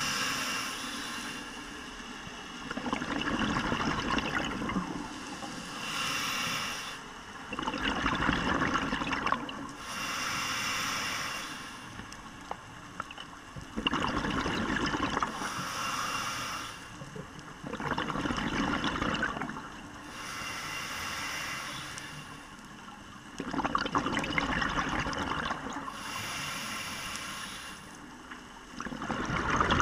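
Scuba diver breathing through a regulator underwater: a short hiss on each inhale, then a longer, louder rush of bubbles on each exhale, the cycle repeating about every five seconds.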